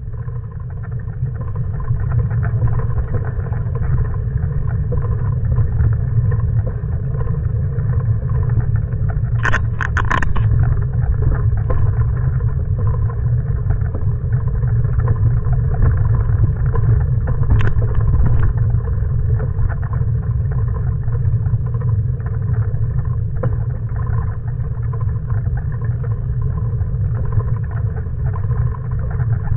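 Bicycle riding along a dirt towpath, heard from a camera on the handlebars: a steady low rumble of tyre and wind noise. A brief rattle of sharp clicks comes about ten seconds in and a single click near eighteen seconds.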